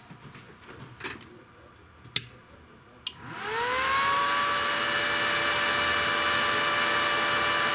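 A Wester Mini 220T welding inverter powering up. A few clicks come first, then about three seconds in its cooling fan spins up with a rising whine and settles into a steady whirring hum. The machine is starting normally after its capacitors were replaced.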